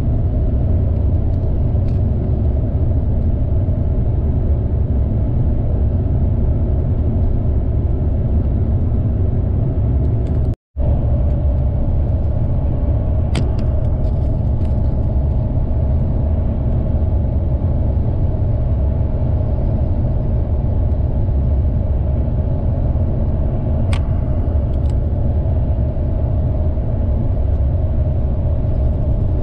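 Steady engine and road rumble from inside a moving coach bus, with a few faint clicks or rattles. The sound cuts out for a split second about ten seconds in.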